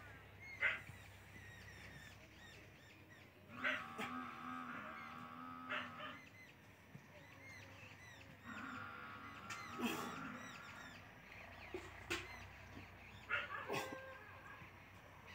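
Birds calling: small birds chirping throughout, with two longer honking calls about four and eight and a half seconds in, and a few short sharp calls or knocks between them.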